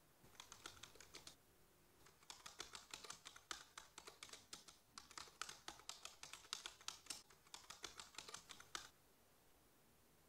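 Quiet typing on a computer keyboard: a short burst of keystrokes, a pause of about a second, then a longer run of quick keystrokes that stops near the end.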